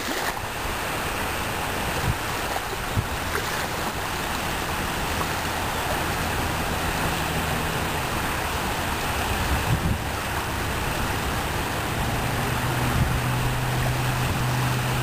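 Small Gulf waves lapping and washing up on a sandy shoreline, with wind buffeting the microphone. A faint low steady hum comes in about halfway through and grows a little near the end.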